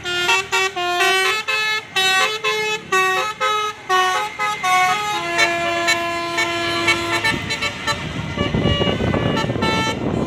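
Bus telolet horn, a Basuri multi-tone horn, playing a quick melody of short toots at changing pitches. It then holds one long note, and a rush of noise from the passing bus follows near the end.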